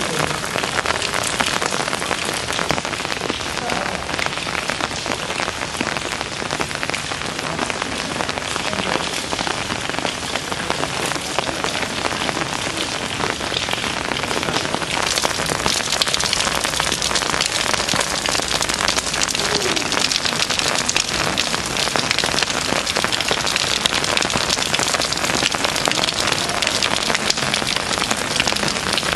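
Steady rain falling on canal water and stone paving, a dense patter of drops, a little brighter from about halfway through.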